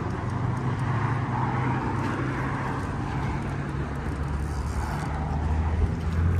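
Steady traffic on a highway bridge alongside: a continuous rush of passing cars with a low engine hum, swelling slightly near the end.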